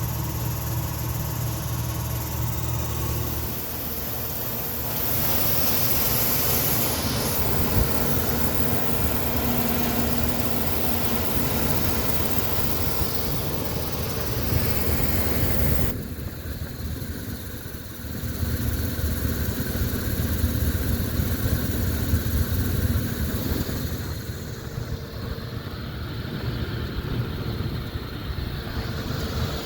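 GE Genteq 5KCP39HG blower motor in an old central air-conditioning unit running with a steady hum and a clicking noise, a sign of a failing motor that the owner suspects is a bearing issue.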